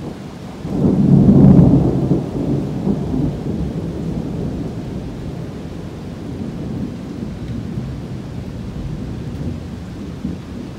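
Thunder rumbling: a peal swells about a second in, peaks, then rolls away over several seconds, over the steady sound of rain.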